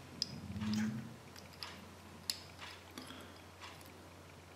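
Small plastic toy parts of a Kinder Surprise Beyblade handled in the fingers: faint scattered clicks and ticks as the pieces are turned and pressed together.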